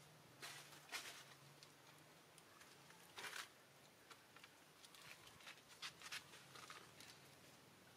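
Faint, scattered crunching and rustling of long-tailed macaques feeding on fallen fruit among dry leaves, the crackles coming in short clusters, with a low steady hum beneath.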